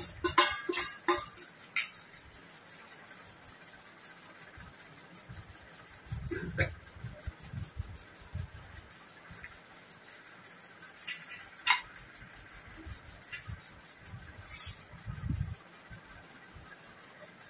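A stainless steel spoon and bowl clinking against a steel plate while dal is served onto rice. There is a quick run of clinks in the first two seconds, then a few single clinks and soft knocks spread through the rest.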